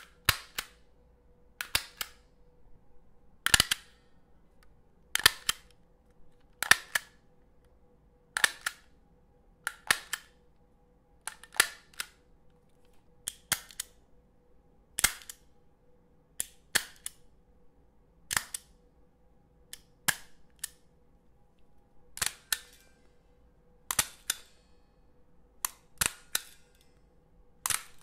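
A stapler being pressed again and again, about seventeen times, roughly every one and a half to two seconds; each stroke is a sharp click, often a quick double click.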